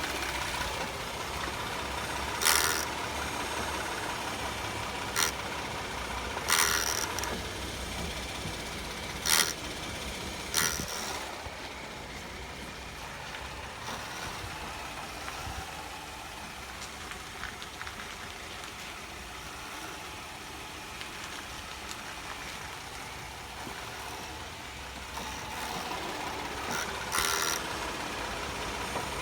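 Vehicle engine idling steadily, with about half a dozen short sharp noises, most in the first eleven seconds and one near the end, while the steering wheel is shaken to test whether a relay buzzes.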